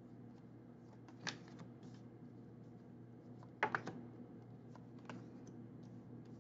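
Tarot cards being laid out and turned over on a table: a few light clicks and snaps, one about a second in and a quick cluster near the middle, over a low steady hum.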